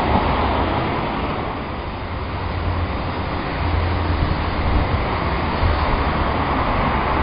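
Strong wind buffeting the camera's microphone: a continuous, uneven low rumble with a rushing hiss, easing slightly about two seconds in.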